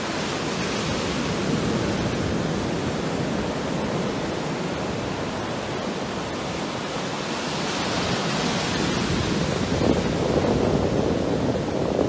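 Ocean surf breaking and washing up a sandy beach: a steady rushing that swells louder twice in the second half.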